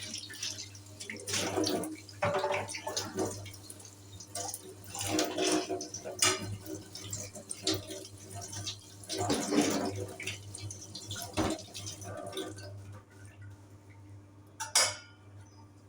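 Water from a kitchen tap splashing unevenly at a sink, with some clatter, over a steady low hum; it dies down near the end, where there is one sharp knock.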